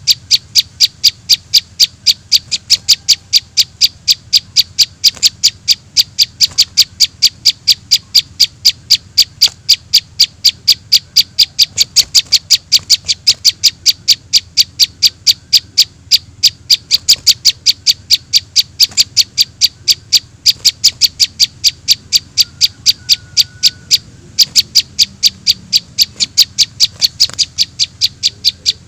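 Bird-lure recording of juvenile prinia (prenjak) calls played back: short, sharp high chirps repeated evenly at about four to five a second, all at much the same loudness.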